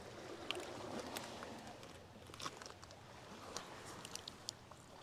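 Faint crunches and scattered clicks of stones and pebbles shifting underfoot, over a faint steady hiss.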